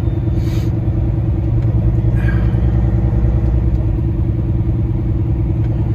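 Heavy diesel tow truck's engine running at a steady drone, heard from inside the cab while driving slowly on an icy highway.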